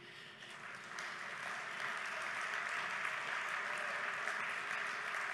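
Audience applauding, swelling over the first second into steady applause.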